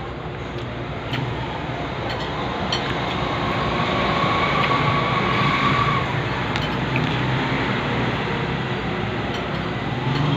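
A motor vehicle's engine rumbling steadily, swelling to its loudest a little past the middle as it passes close by, with a faint whine at its peak. A few light clicks from eating by hand off a plate come through.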